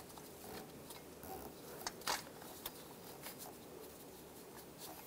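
Faint rustling and scattered light clicks of gloved hands working a ribbed serpentine belt over the engine's pulleys, with one sharper click about two seconds in.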